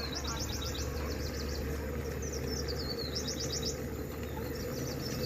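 A songbird singing the same short phrase three times, each a wavering high note followed by a quick run of repeated high notes, over a steady low hum.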